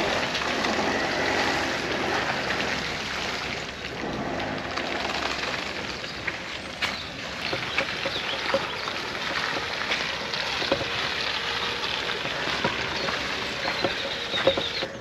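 Vehicle being driven over rough ground under a steady, dense rush of noise, with scattered sharp knocks from about halfway through.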